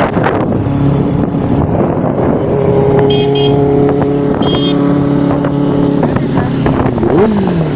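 Benelli 600i's inline-four engine running at a steady speed, with a smooth even tone. Near the end the pitch shifts.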